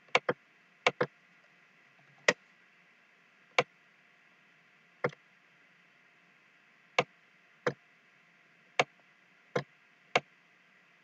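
Computer mouse clicking: about a dozen sharp single clicks at irregular intervals, with a couple of quick double clicks in the first second.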